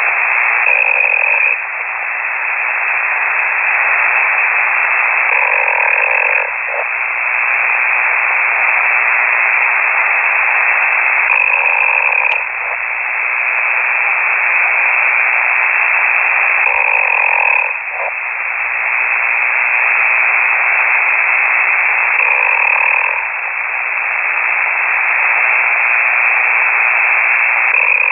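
A ham radio operator snoring on an open microphone, heard through a KiwiSDR shortwave receiver as steady, narrow-band radio hiss. A snore-like sound recurs about every five and a half seconds, five times in all.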